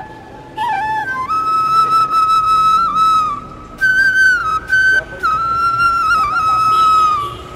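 Background music: a solo flute melody of long held notes with small turns between them, played in phrases broken by short pauses.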